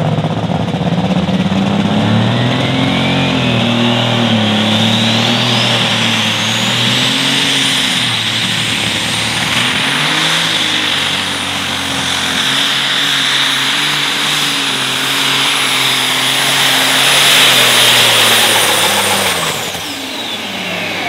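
Case IH Light Super Stock pulling tractor running at full power under load on a pull. Its turbocharger whistle climbs to a high steady pitch over the first several seconds and holds there. Near the end the whistle drops and the engine note falls as the tractor backs off.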